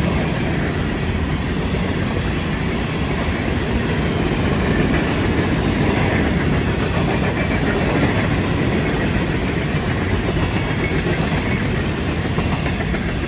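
Florida East Coast Railway freight train's loaded-or-empty rock hopper cars rolling past close by, steel wheels clattering on the rails in a steady, loud noise.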